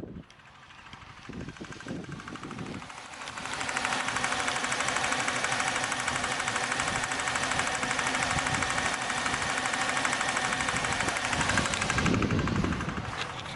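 2003 Buick Century's 3.1-litre V6 running with a rapid, even knocking that comes in loud about three seconds in and eases near the end. The knocking is caused by spark plugs that were not tightened down enough.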